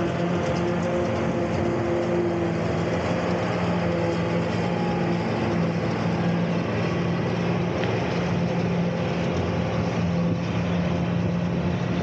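Farm tractor engine running steadily under load, a constant even drone.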